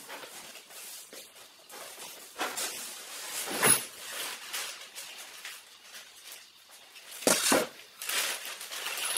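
Cardboard box and packing material rustling and scraping as hands rummage inside a large carton, with louder scrapes and crinkles about two and a half to four seconds in and again around seven to eight and a half seconds.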